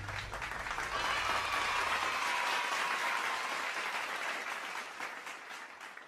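A crowd applauding, the clapping fading out near the end.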